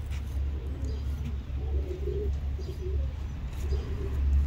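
Domestic pigeons cooing: low warbling coos repeated several times, over a steady low rumble.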